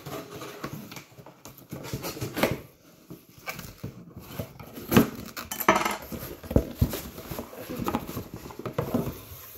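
Cardboard shipping box being cut open and handled: a knife drawn along the packing tape, then the flaps pulled open, with scraping, knocks and rustling.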